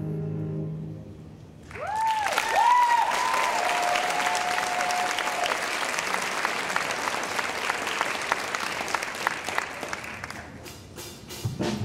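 Audience applause with several loud rising-and-falling whistles near its start, one whistle held for a couple of seconds. The applause starts about two seconds in and dies away shortly before the end, as a band starts up with guitar.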